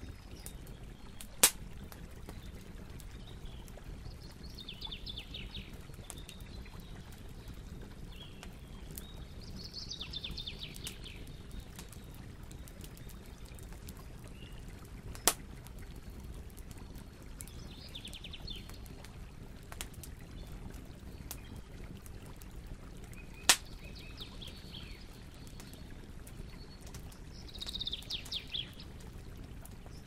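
A large wood bonfire burning with a steady low rush and a few sharp, loud pops. A bird calls five times in short, rapid chirping phrases, each about a second long.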